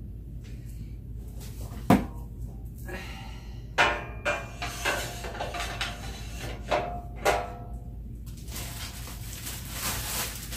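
Metal mesh baskets and tubular steel frame of an IKEA utility cart knocking and clattering as a basket is fitted onto the frame. There is a sharp knock about two seconds in, then a run of clanks with short metallic ringing, and a rustle near the end.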